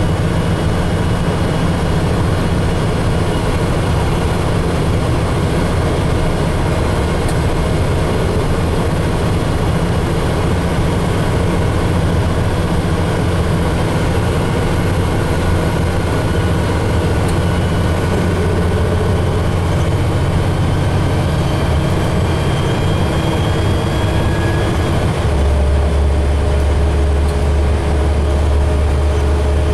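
2007 Gillig Phantom transit bus's diesel engine and drivetrain running under way, heard from inside the bus. A faint whine rises through the middle, and about 25 seconds in the engine note drops to a lower, steadier tone.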